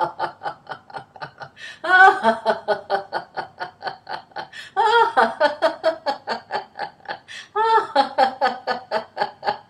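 A woman laughing in rapid runs of 'ha-ha-ha'. A fresh, louder run starts about every three seconds and trails off. This is deliberate 'ha' heart laughter in a laughter-yoga exercise.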